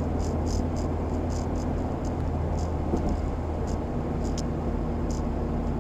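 Cabin noise of a 2019 UAZ Patriot on the move: a steady low road and engine drone, with short high-pitched squeaks at irregular intervals. This is the extraneous noise that the dealer traced to the front axle's steering knuckle pivots, left without grease at the factory.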